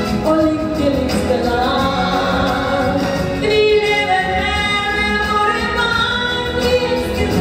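A woman singing a song in Norwegian into a microphone over instrumental accompaniment, holding some notes with vibrato.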